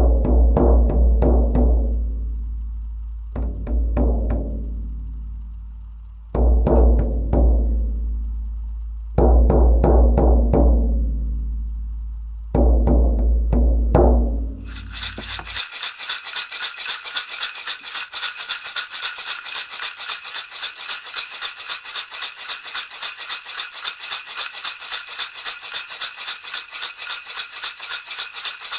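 A deep drum beaten in flurries of quick strokes, each flurry left to ring and die away, about every three seconds. About halfway through the drum stops and a rattle takes over, shaken in a fast, steady rhythm.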